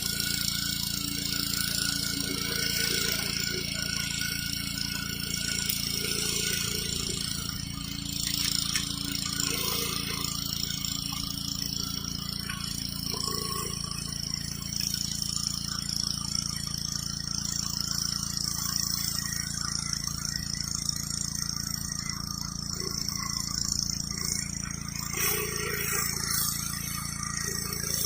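Gas pressure washer's engine running steadily under the hiss of the high-pressure water jet blasting grime off concrete.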